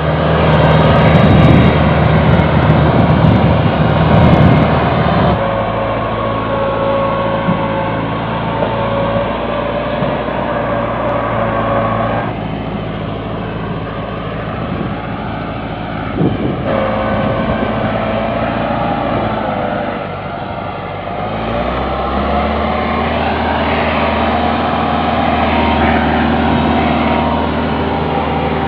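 Massey Ferguson 385 tractor's diesel engine running hard under heavy load, pulling a trolley loaded with sugarcane. The engine note is steady, with a heavier low rumble in the first few seconds and several abrupt shifts in pitch and loudness.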